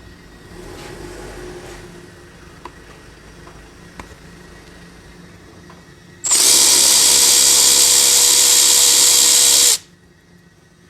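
Power tool running steadily at one speed for about three and a half seconds, with a constant whine, starting abruptly about six seconds in and cutting off sharply. A few light knocks of work on the part come before it.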